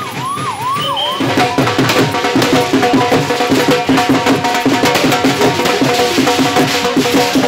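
A vehicle siren wailing in rising sweeps for about the first second, then loud drum-led music: a fast, steady drum beat over held pitched tones.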